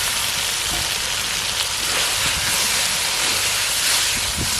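Fried pointed gourd sizzling steadily in a pan of hot oil and spice paste as it is sautéed.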